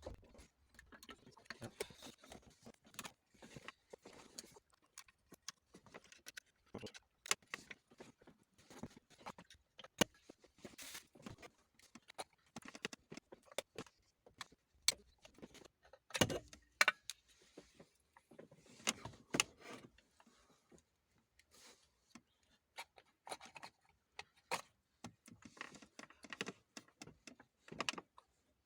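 Irregular metallic clicks, clinks and light knocks of hand tools and metal parts being handled while a Kia's electric power steering column is taken apart, with light rustling between them.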